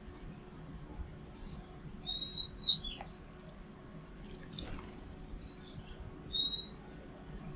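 Small birds giving short, high chirps: a few scattered notes with gaps between them, over faint low background noise.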